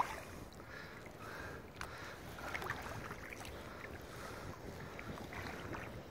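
Kayak paddle strokes on lake water: irregular small splashes and drips as the blade dips and lifts, over a steady wash of water.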